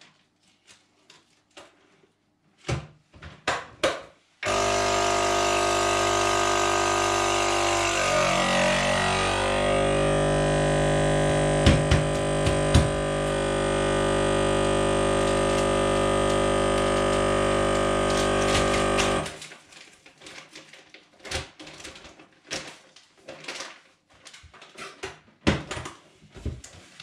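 Countertop vacuum sealer's pump running steadily for about fifteen seconds, starting abruptly a few seconds in and cutting off suddenly, as it draws the air out of a flattened freezer bag of minced meat.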